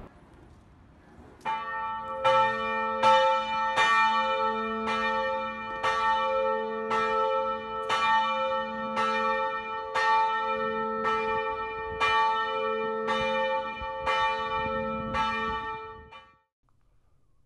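Church bell in an open concrete bell tower ringing in a steady rhythm, about one stroke every three-quarters of a second, ringing in the service. It starts about a second and a half in and dies away shortly before the end.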